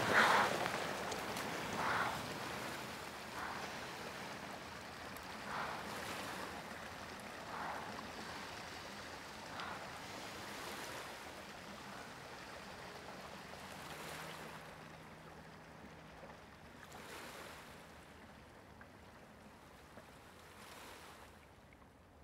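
Small waves lapping at a lakeshore, a soft wash every couple of seconds that fades away toward the end.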